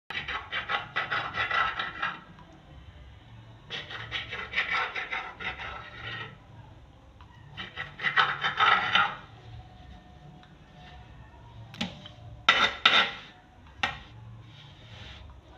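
Knife blade rasping through thin samosa wrapper dough and scraping along the floured table, in three bursts of quick back-and-forth strokes. A few sharp knocks follow near the end.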